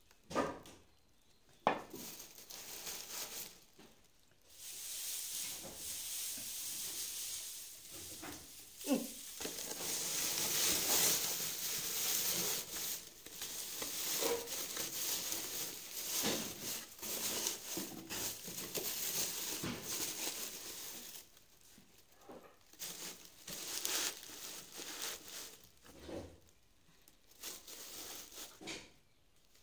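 Dry grass straw rustling and crinkling as it is handled and pressed by hand into a cardboard box, with a couple of sharp knocks near the start. The rustling is thickest through the middle and comes in shorter, patchier spells near the end.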